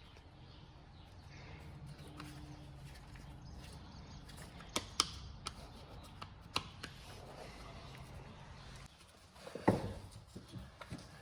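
Scattered sharp clicks and knocks, several in the middle and a quick run of them near the end, over a faint low hum, as parts and tools are handled on a car.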